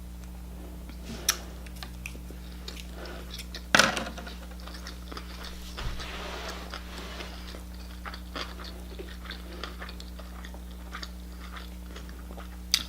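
Close-miked mouth sounds of someone chewing a bite of shrimp sushi roll: soft, wet clicks and smacks. A louder click comes about four seconds in, and a faint steady hum runs underneath.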